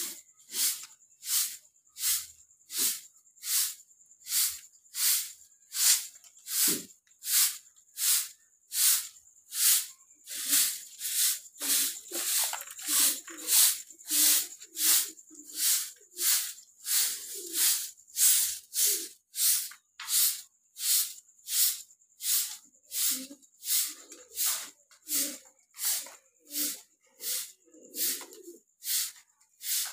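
Short-handled grass-bristle hand broom sweeping a dusty cement floor: a steady run of scratchy swishing strokes, about three every two seconds.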